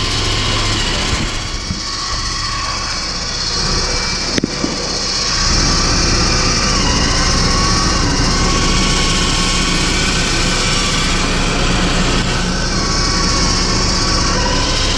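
Smittybilt X20 10,000 lb electric winch: a sharp click about four and a half seconds in, then the winch motor and gear train running steadily under load, spooling in its synthetic rope. A steady engine idle hums underneath.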